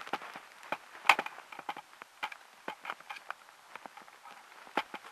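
Footsteps through dry leaf litter and twigs: irregular crunches and crackles, the loudest a little after a second in and another near the end.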